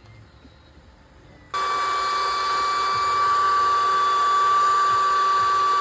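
Small electric blower motor switched on about a second and a half in, then running at a steady level with a high, even whine over a rushing airflow.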